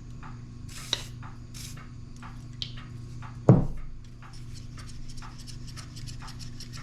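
Small clicks and light scraping of a rusty one-hand maple tubing tool being worked open and closed as oil is worked into its stiff pivot, with one louder knock about three and a half seconds in.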